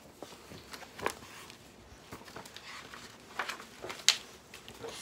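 Pages of a picture book being handled and turned: a few short papery rustles and taps, the loudest about four seconds in.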